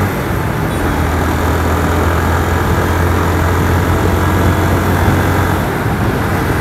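Motorcycle riding at speed on a road: a steady low engine hum under continuous wind and road noise.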